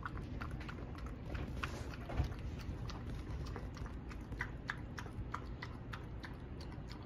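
A small dog lapping kefir from a plastic bowl: faint, quick, irregular wet tongue clicks, several a second.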